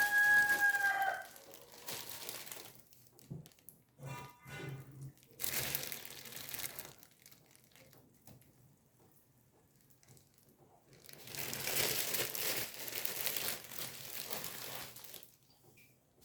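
A rooster crowing, one long held call that ends about a second in. Later come two stretches of soft hissing or rustling noise, the second and longer one near the end.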